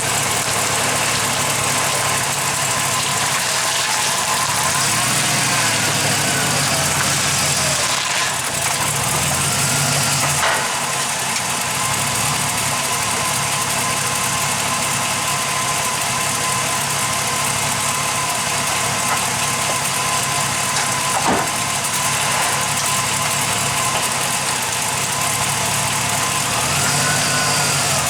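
2000 GMC vehicle running steadily, with a sharp clunk twice, about ten seconds apart. This is the clunk of unknown origin that the vehicle makes over bumps.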